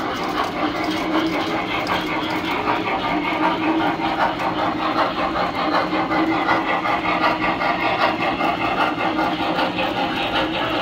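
Tinplate model steam locomotive and cars running on three-rail track: a steady electric-motor whir under a rapid clatter of wheels and gears.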